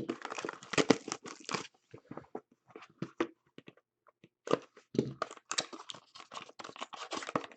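Plastic packaging crinkling and tearing as trading card packs and boxes are opened and handled. A dense run of crackles, a sparser stretch in the middle, then another dense run.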